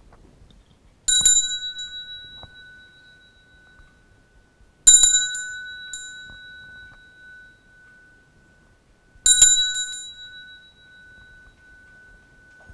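Small metal ritual bell rung three times, about four seconds apart. Each is a single sharp strike that leaves a clear, high ringing tone dying away over several seconds.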